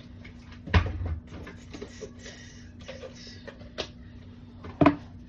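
Clunks and clatter of items and shelves being handled while a refrigerator is cleaned out, with a loud knock a little under a second in and another near the end, over a steady low hum.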